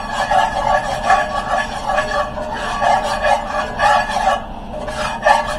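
A utensil stirring and scraping a butter-and-flour roux in a cast iron skillet, about two strokes a second, with a brief pause near the end.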